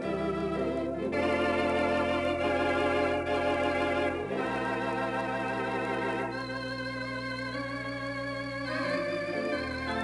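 Theatre organ playing sustained chords with a wavering tremulant vibrato over held bass pedal notes that change a few times.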